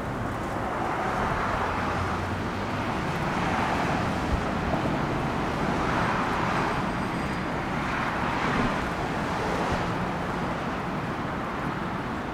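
Road traffic noise: a steady rush of passing vehicles with a low rumble underneath, swelling and fading every couple of seconds as cars go by.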